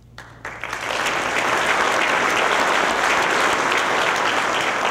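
Audience applauding: the clapping starts about half a second in, builds to full strength within the first second, then holds steady.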